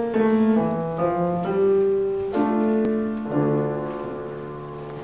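Piano accompaniment playing the closing bars of a choir piece without the singers: a few chords in turn, then a last chord held and left to fade.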